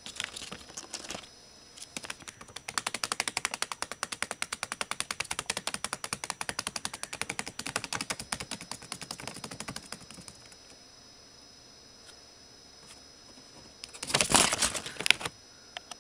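A rapid, even run of sharp clicks or taps, about ten a second, lasting several seconds, followed near the end by a loud, short, noisy burst.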